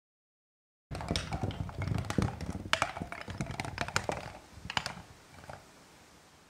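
A rapid, irregular run of clattering knocks and taps that starts suddenly about a second in, thins out and fades away by about five and a half seconds.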